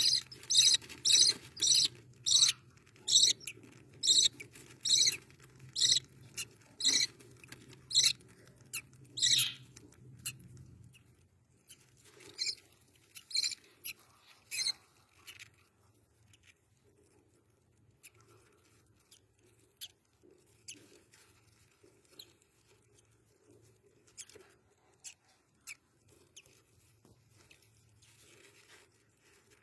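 Rainbow lorikeet chick peeping: a run of short, high squeaky cheeps about two a second, then after about ten seconds fewer, fainter ones.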